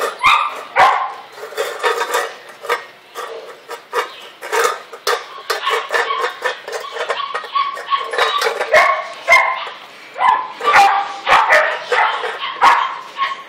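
A dog barking and yipping again and again, with sharp clinks of a stainless steel food bowl as a Rottweiler puppy eats from it.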